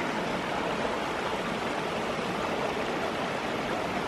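A shallow mountain stream running over rocks: a steady, even rush of water.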